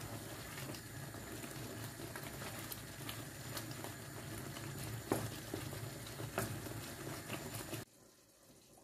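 Tomato sauce simmering and bubbling in a frying pan while a wooden spoon stirs it, with small ticks and two louder knocks of the spoon against the pan about five and six and a half seconds in. The sound cuts off suddenly near the end.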